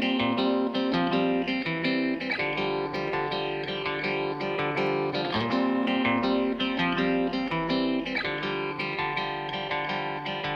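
Background music led by plucked guitar, with steady repeated notes.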